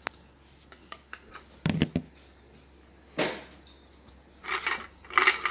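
Plastic toy cookware and utensils knocking and clattering in scattered clicks, with a louder thump just under two seconds in and a run of quick knocks near the end.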